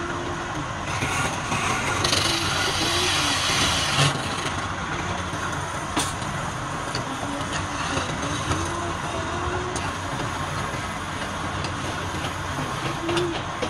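Wood lathe running steadily with a constant hum. A louder hiss of the tool cutting the wood comes between about two and four seconds in, with a few sharp knocks.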